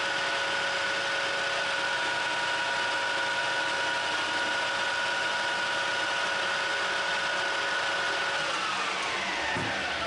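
Metal lathe running with its four-jaw chuck spinning at speed, giving a steady multi-tone whine. About eight and a half seconds in it is switched off, and the whine falls steadily in pitch as the spindle coasts down.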